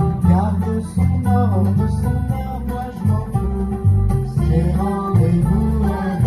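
A live acoustic ensemble playing an instrumental passage: banjo and oud plucking a melody over a double bass line.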